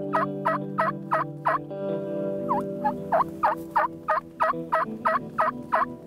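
Turkey yelping: a short run of about five evenly spaced yelps, a brief pause, then a longer run of about eleven at roughly three a second.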